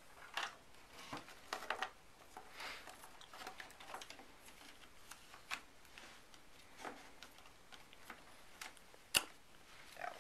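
Hands working on a radio-controlled model airplane, tucking in wiring and pressing the wing onto the fuselage: faint, irregular clicks, taps and rustles, with one sharper click about nine seconds in.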